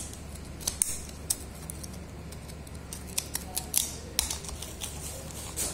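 The tip of a boning knife cutting through meat and membrane around the hip bone of a veal leg: a series of short, irregular clicks and scrapes as the blade works.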